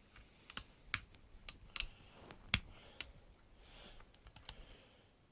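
Small screwdriver clicking and scraping against a stiff screw in the body of a spring-powered airsoft pistol, in about a dozen irregular sharp clicks.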